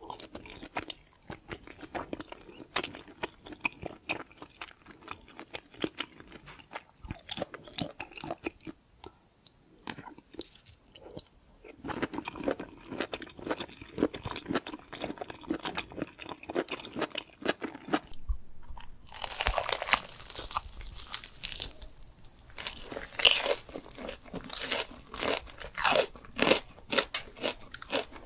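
Close-miked chewing and crunching of food, many irregular crisp bites and chews. It eases off briefly about a third of the way in, and the crunching turns louder and crisper from about two-thirds in.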